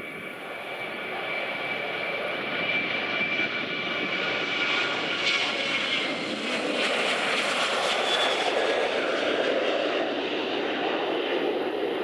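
Boeing 737-800's CFM56 turbofan jet engines at takeoff power, a dense roar with a high fan whine, growing louder over the first few seconds as the airliner takes off and passes.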